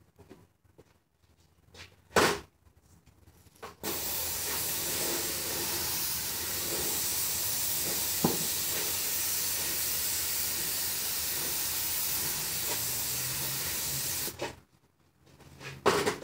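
Airless paint sprayer spraying: a steady, even hiss that starts abruptly and runs for about ten seconds before cutting off sharply as the trigger is released. A sharp knock comes about two seconds in, and another near the end.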